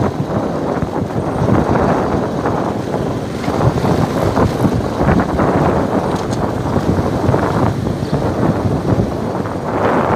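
Wind buffeting the microphone of a camera moving down a rural lane: a loud, uneven rumble.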